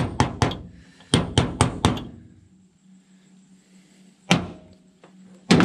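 Hammer blows seating a seal in a double-cardan drive shaft joint: two quick runs of three or four taps, then a pause and two more single blows near the end.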